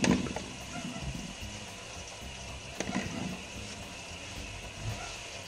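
Paper towel rubbing and wiping across the cabinet floor under a sink, with a knock at the start and another about three seconds in.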